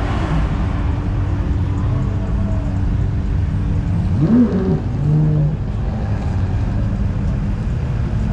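Car engines running in slow street traffic, a steady low rumble, with one engine revving up and back down about four seconds in.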